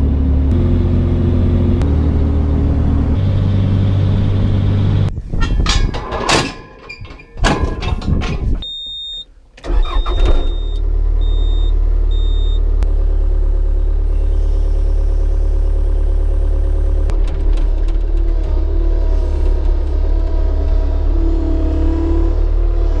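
Vehicle engine running steadily, heard from inside the cab, its pitch stepping up a couple of times early on. About five seconds in, the drone breaks off into a few seconds of clattering and a run of short high electronic beeps, then the steady engine drone returns.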